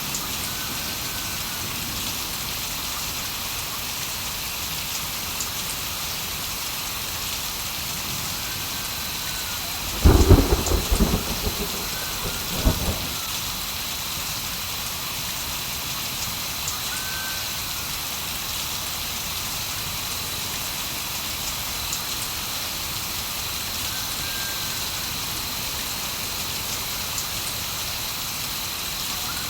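Steady heavy rain falling, with a thunderclap about ten seconds in that rumbles for roughly three seconds. Faint short chirps recur every several seconds over the rain.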